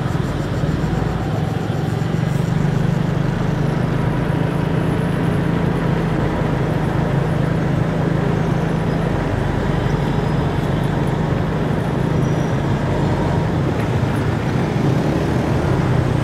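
Steady road and traffic noise from a moving motor scooter: its engine running under way amid surrounding city traffic.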